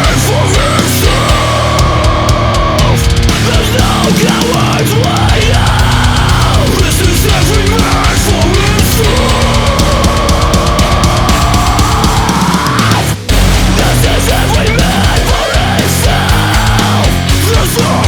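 Loud heavy metal music with a sliding melodic line over dense drums and guitar. It breaks off for a moment about two thirds of the way through.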